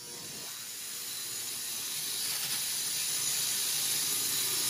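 Angle grinder grinding steel, a steady high hiss that fades in and grows slowly louder over the first few seconds.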